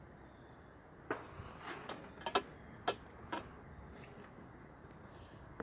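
Bonfire crackling, with a handful of sharp snaps and pops spread out over a few seconds.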